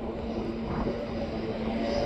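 Steady drone of jet aircraft with a constant low hum under it, growing slightly louder near the end.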